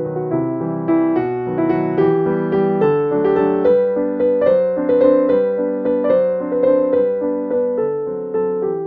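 Background piano music: a gentle melody of single struck notes, about three a second, each fading away.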